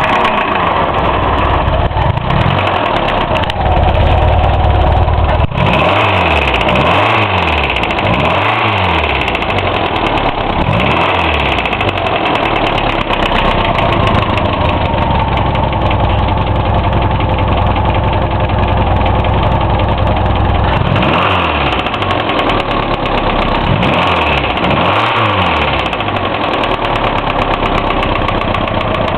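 Hillman Imp's small all-aluminium four-cylinder engine running after a rebuild, with a bad knock; it idles steadily and is revved up and back down in two spells, several blips each. The bearings and tappet clearances have been checked and found fine, so the cause of the knock is unknown.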